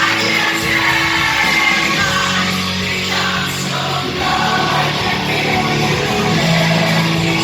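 Rock band playing with a singer, over sustained low bass notes.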